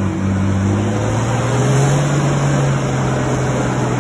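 Bus diesel engine labouring under load as its rear wheel spins in deep clay mud, the engine note rising a little about halfway through and then easing. The bus is losing traction, crawling uphill with a tyre chain lost on one side.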